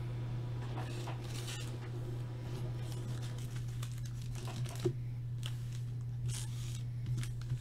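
Faint rustling and crinkling of paper being handled, with a few light knocks, over a steady low hum.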